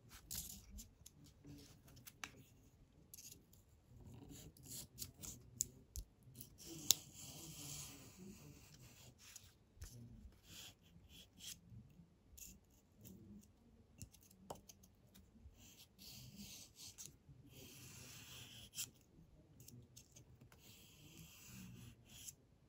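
Faint scraping of a small steel leather-tool blade drawn along the abrasive strips in the grooves of a sharpening strop block, stroke by stroke, with many light clicks as the tool taps and catches on the block's plastic ridges.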